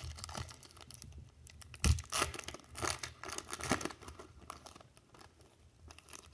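Foil wrapper of a Topps baseball card pack being torn open and crinkled in the hands, a run of short crackling rustles with a dull thump about two seconds in.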